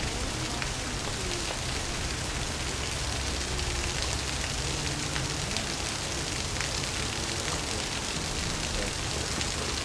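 Steady outdoor background hiss, like rain or running water, with faint scattered ticks.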